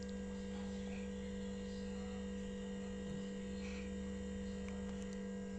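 A steady low hum, with a sleeping cat's faint snoring breaths from inside a plastic bag.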